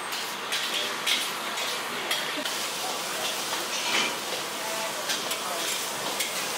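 Shrimp frying in hot oil in a steel wok over a gas burner, with a steady sizzle. A metal ladle stirs, clinking and scraping against the wok several times, most sharply about four seconds in.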